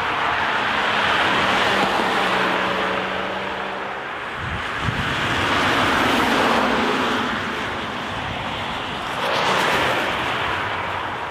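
Cars passing on a street, the tyre and engine noise swelling and fading three times, with a low engine hum under the first pass.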